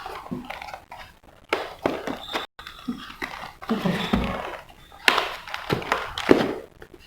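Packaging of a fetal doppler being handled and pried open by hand: irregular rustling with scattered knocks and clicks.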